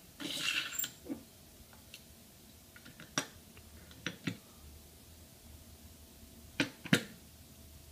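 Glass bottle knocking and clinking against the metal and rollers of a bottle-cutting jig as it is handled and set in place. A brief sliding scrape of the cutter carriage at the start, then scattered sharp knocks, the loudest two close together near the end.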